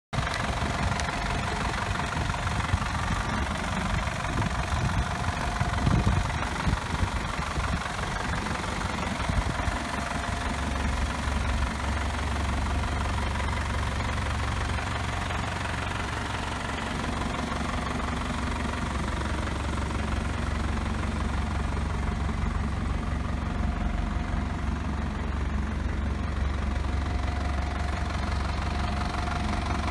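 Toyota Dyna truck engine idling steadily. Its low rumble grows stronger from about ten seconds in.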